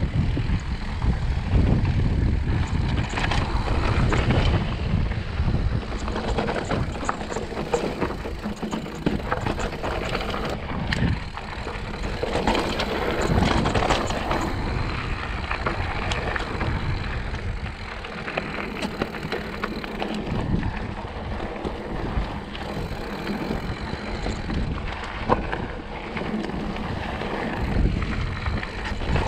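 Mountain bike ridden over a dirt and rock trail: tyres crunching on the dirt, with frequent small rattles and knocks from the bike over bumps. Wind rumbles on the microphone, heaviest in the first few seconds.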